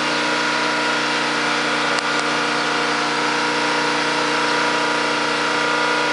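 Cadillac Northstar V8 running at a steady speed, with an even hum and hiss and no change in revs, freshly sealed after a blown head gasket.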